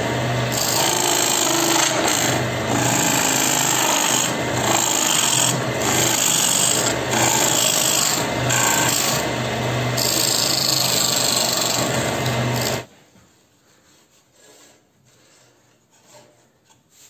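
Wood lathe running while a gouge cuts the inside of a spinning wooden bowl, a steady motor hum under a loud rasping, hissing cut as shavings tear off. The sound stops abruptly about three-quarters of the way through, leaving only faint scattered small sounds.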